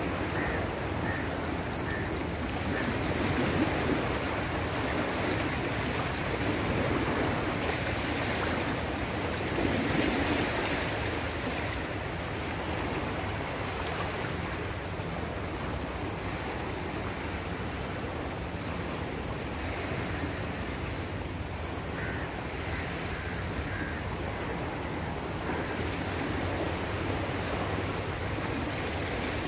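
Shallow sea water lapping and washing around the shoreline, a steady noisy wash that swells slightly a few seconds in and again about ten seconds in.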